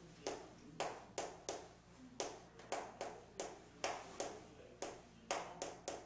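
Chalk tapping and scraping on a chalkboard while someone writes Korean characters: a run of about fourteen sharp, uneven taps, roughly two a second, one for each stroke.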